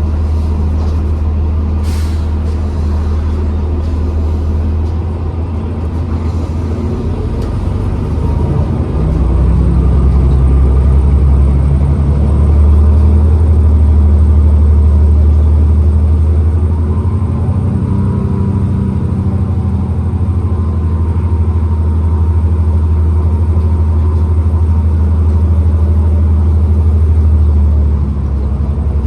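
New Flyer XDE40 diesel-electric hybrid bus running, a heavy low drivetrain rumble that swells louder for several seconds partway through as it gets under way, with faint shifting tones in the middle. A brief sharp click comes about two seconds in.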